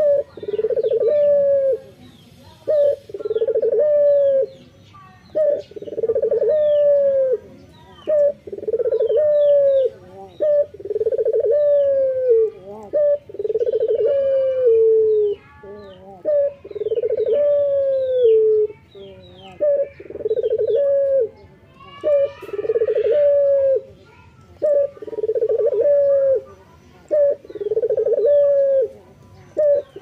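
A male collared dove cooing over and over, one low coo with a falling end about every two seconds. Small birds chirp faintly and high in the background.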